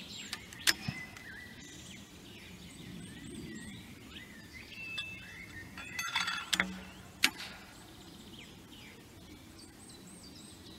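Birds singing with repeated short chirping phrases, broken by a few sharp metallic clicks from the crew handling the breech of a small breech-loading salute cannon: once about a second in and a few more between six and seven seconds in.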